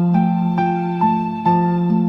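Soft, slow instrumental background music: held keyboard-like notes, with a new note starting about every half second.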